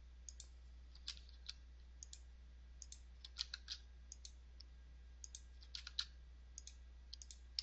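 Faint, scattered clicks of a computer keyboard and mouse, single or in small clusters with pauses between. They come as software control labels are selected and typed over with a single space.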